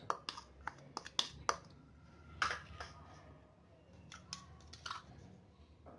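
Light clicks and taps of small kitchen bowls being handled as powder is tipped from a small bowl into a glass mixing bowl. There are several sharp knocks in the first second and a half, then fainter scattered taps.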